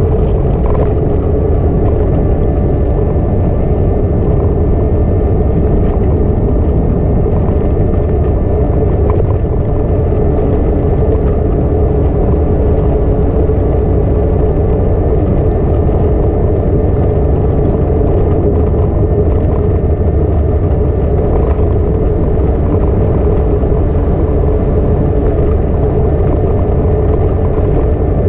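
Steady, loud wind rumble and rolling noise on a GoPro action camera's microphone while riding along a bike path, with a faint steady hum above it.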